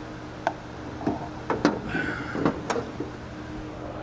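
A handful of short, sharp clicks and knocks from small parts and hand tools being handled while working on an engine, over a steady low hum.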